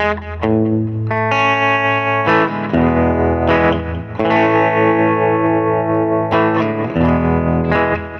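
Electric guitar played through a delay pedal, chords ringing with echo repeats. The chords change every second or two, and a held chord in the middle pulses with a steady warble.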